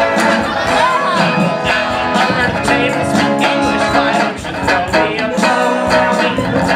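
Live song: an electric guitar strummed in a steady beat, with a man singing loudly into a microphone over it.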